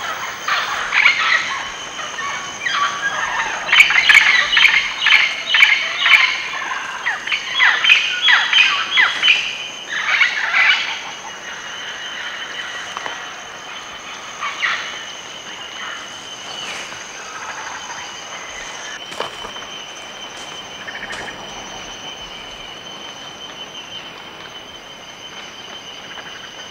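Chachalaca calling, a loud run of harsh, repeated calls that lasts about ten seconds, then stops. After that a steady high insect trill goes on, with a few faint bird calls over it.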